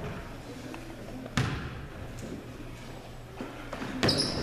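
A basketball bounces once on a hardwood gym floor, a single sharp thud about a second and a half in, as a free throw is lined up. Near the end the gym's crowd noise and voices swell as the shot goes up.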